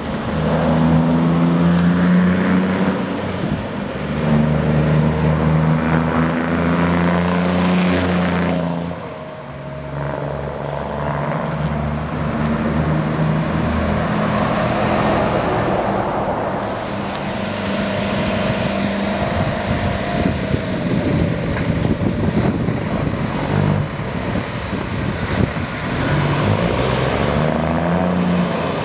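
Heavy Scania trucks' diesel engines accelerating and driving past one after another. The engine note climbs and drops back several times as they change gear.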